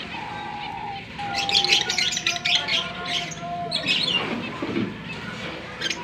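Cockatiels chirping: a quick run of sharp calls from about a second in, another call near four seconds, with a steady whistled note held underneath in the first half.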